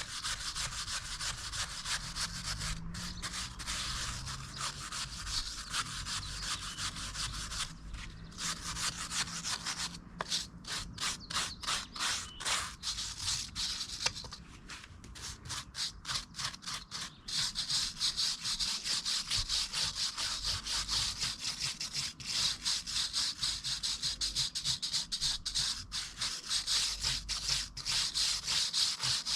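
Hand rubbing or scrubbing against a surface in continuous back-and-forth strokes. For several seconds midway the strokes become distinct and rapid, about three a second.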